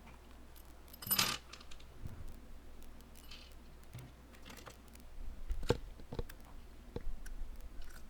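Small, light clicks and taps of tiny phone screws and a metal repair tool being handled and set down, with a short scrape about a second in and a few sharper clicks near the end.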